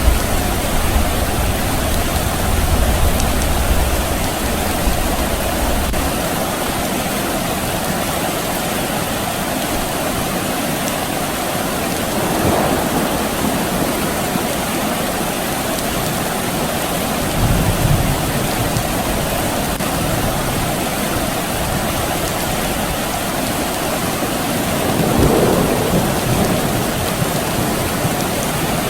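Steady rain with distant thunder: a low rumble dies away about six seconds in, and a short low rumble comes back a little past halfway.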